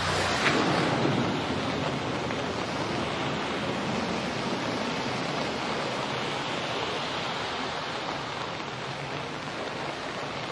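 Steady rush of floodwater through an underpass, with a splash about half a second in as a motorcycle is pushed through the water.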